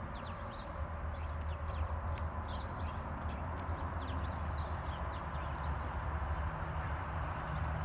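Many birds chirping, short calls scattered throughout, over a steady low rumble of distant road traffic.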